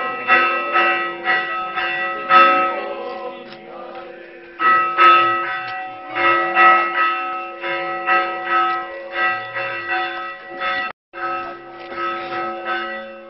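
Church bells ringing, struck over and over about twice a second with a steady ringing hum between strokes, a short lull, then ringing on. It is the Easter midnight peal announcing the Resurrection.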